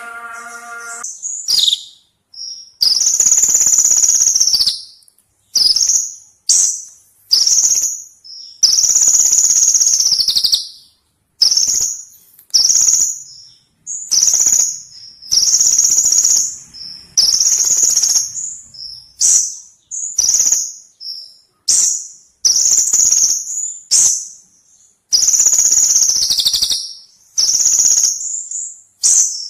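Kolibri ninja sunbird singing: a long string of high, fast, buzzy trilling phrases, some short and some lasting about two seconds, with brief pauses between them.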